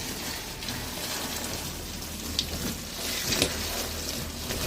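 Water running into an inflatable pool as it fills: a steady splashing hiss.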